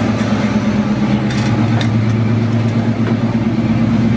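A 1968 Oldsmobile Cutlass's V8 idling steadily with an even hum, the heater running. A few light clicks come about a second and a half in.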